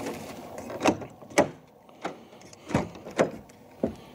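A series of about six sharp knocks and clunks at irregular intervals, half a second to a second apart, some with a dull low thud.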